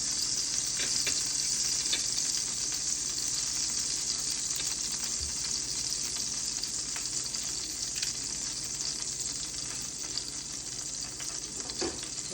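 Food frying in a hot pan: a steady sizzle of hot oil, with a few faint light clicks of utensils against the pan, easing off slightly near the end.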